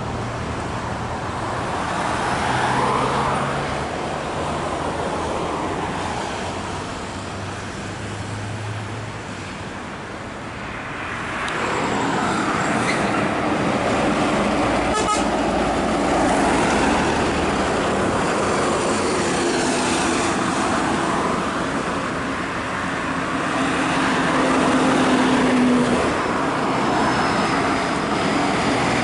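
Heavy diesel trucks, among them Scania tractor units hauling long grain trailers, passing one after another on a highway. Engine noise and tyre roar swell and fade as each goes by, loudest about three-quarters of the way through.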